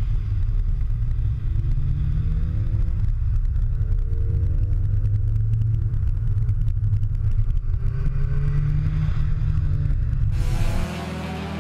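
Renault Clio with a loud aftermarket exhaust back box driving at speed, its engine and exhaust giving a deep, steady rumble with repeated rising pitch as it accelerates. The sound cuts off abruptly near the end.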